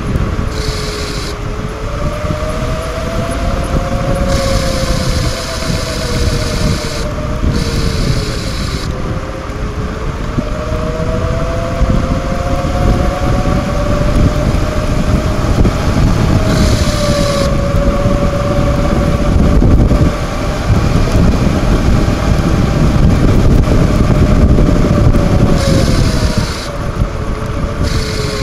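Wind rushing over the microphone of a camera on a bicycle moving down a paved path, with a humming tone that slowly drifts up and down in pitch. A high hiss switches on and off several times.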